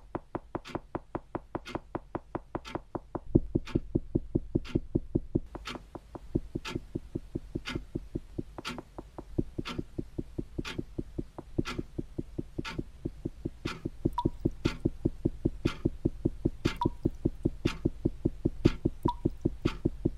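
Tense edited sound bed: a low throbbing pulse about four times a second, like a racing heartbeat, with sharp ticks laid over it. It grows louder and busier about 3 s in and again about 14 s in.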